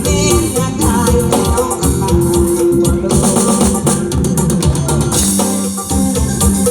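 Live Thai band music accompanying a lae performance: an instrumental passage with drums and shaker-like percussion under sustained pitched instrument notes, loud and continuous.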